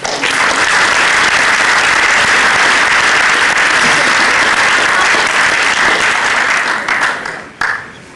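Audience applauding, steady clapping that dies away about seven seconds in, followed shortly by a brief sharp noise.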